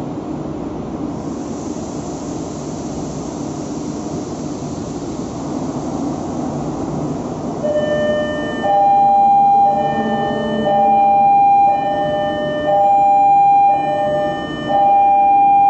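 Steady engine-room machinery noise. About eight seconds in, an electronic two-tone alarm starts and sounds in repeated tones about a second long with short breaks, as the emergency-closed damper flaps shut.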